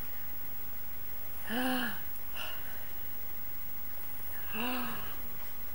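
Two short, drawn-out cooing vocal sounds, each rising and then falling in pitch, traded in play with a baby, over a steady low hum.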